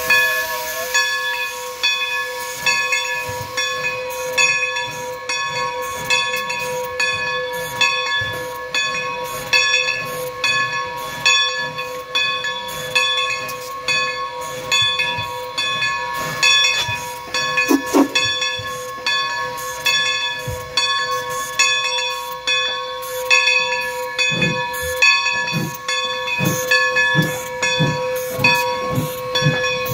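Steam locomotive, a 1925 Baldwin 2-8-0, hissing steam, with a grade-crossing bell ringing steadily about twice a second. In the last few seconds low exhaust chuffs come in at about two a second as the engine gets under way.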